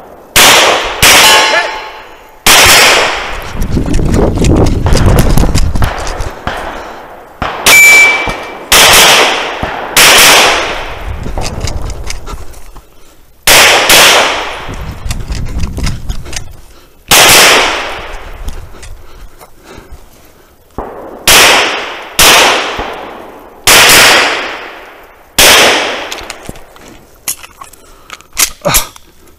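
Pistol shots fired one at a time at an uneven pace, about fourteen loud cracks, some followed by the brief ring of steel targets being hit. Around four to six seconds in a low rumble runs under the shots.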